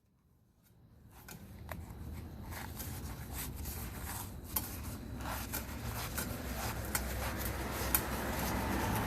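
Rustling and scattered clicks over a low rumble that fades in from dead silence and grows steadily louder.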